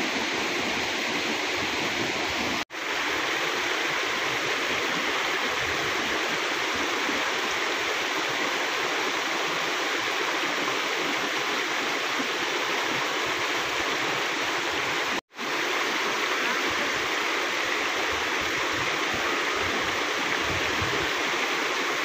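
Mountain stream and small waterfall cascading over boulders: a steady, even rush of water, cutting out for an instant twice, about three seconds in and about fifteen seconds in.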